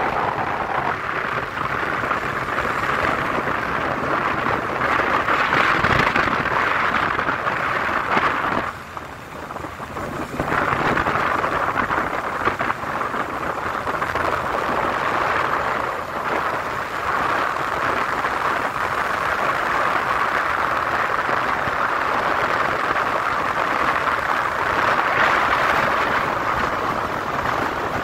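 Wind rushing over a phone microphone held out of a moving car's window, mixed with tyre and road noise. The steady rushing drops away for about two seconds around nine seconds in, then comes back.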